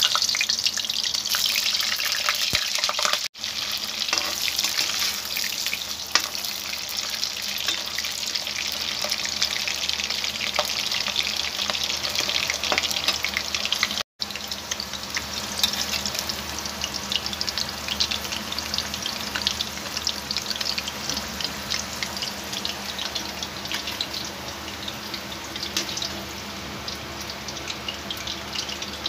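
Potato pieces deep-frying in hot oil: a dense, steady crackling sizzle that breaks off briefly twice.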